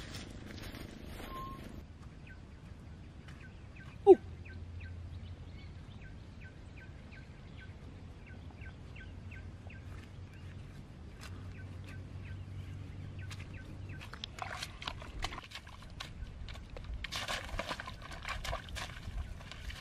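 Rural outdoor ambience: faint high chirps repeating about three times a second, and one brief, loud note falling in pitch about four seconds in. Rustling and scuffing of bare feet and hands in grass come near the end.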